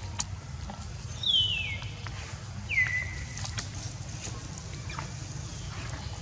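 Monkey squealing twice, about a second and a half apart: two high, loud calls, each falling in pitch.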